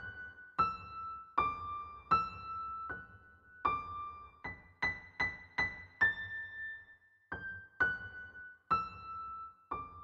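Background music: a slow melody of single piano notes, each struck and left to fade before the next.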